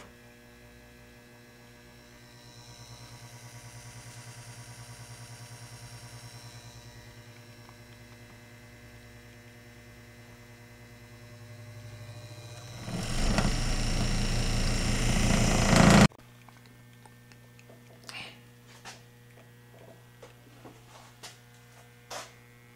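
Small electric motor of a lab overhead mixer, run through a knob speed controller. It hums steadily, and a rising whine swells and fades early on. About halfway through, with the knob turned up, it runs much louder and rougher for about three seconds, then stops abruptly, leaving a faint hum and a few light clicks.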